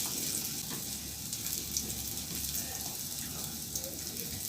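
Food frying in a pan: a steady sizzle with scattered small crackles.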